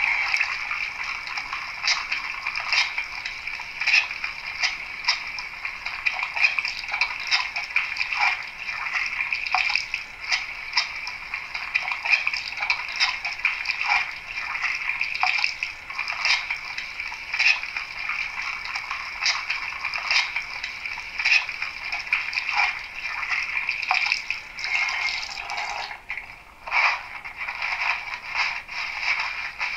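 A recorded sample of a tap running and hands being washed, then dried, played by the sound decoder of a Trix H0 model railbus through its tiny onboard loudspeaker. The water sound is a continuous splashing hiss with many small splashes, thin and with no bass.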